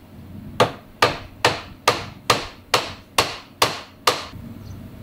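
Wooden mallet tapping a walnut rail down onto the tenons of its upright posts to seat the joints. Nine evenly spaced knocks, about two a second, starting about half a second in.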